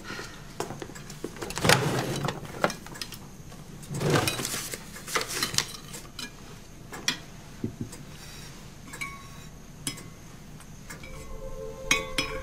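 Rummaging through a wooden dresser drawer: things being shifted and shuffled in irregular bursts, with small knocks and clinks. Soft music comes in near the end.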